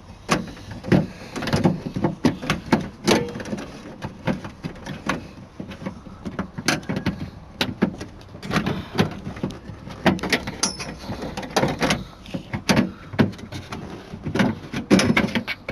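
Mazda MX-5 door latch assembly being worked out through the door shell: a string of irregular metallic clicks, knocks and rattles as the latch and its rods are handled inside the door.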